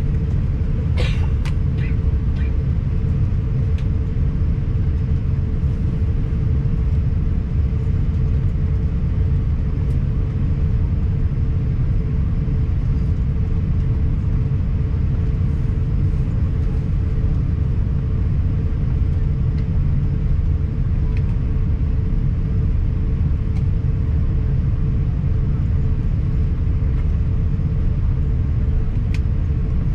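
Cabin noise of an Airbus A350-1000 taxiing on the ground: a steady low rumble from its idling Rolls-Royce Trent XWB engines and rolling airframe, with a steady hum held at one pitch. A few light clicks sound about a second in.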